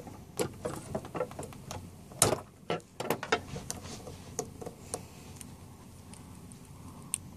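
Light, irregular clicks and taps of a fidget spinner and the phone being handled, loudest about two seconds in and thinning out in the second half.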